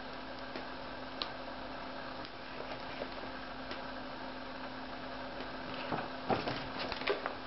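Steady hiss with a constant low electrical hum. There is a faint click about a second in, and near the end a short run of rustling and knocking handling noises.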